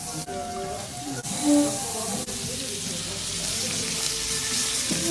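Meat frying in hot fat in small pans: an even, hissing sizzle that grows stronger about two seconds in.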